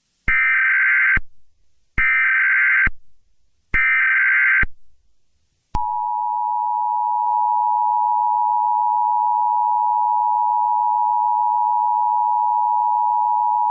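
Emergency Alert System tones: three bursts of SAME header data, each about a second long, a rapid warbling screech. Then the steady two-tone attention signal starts about six seconds in and holds. Together they mark the start of an emergency alert broadcast.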